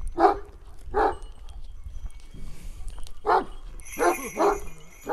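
Large Kangal shepherd dog barking: two deep barks, a pause, then three more.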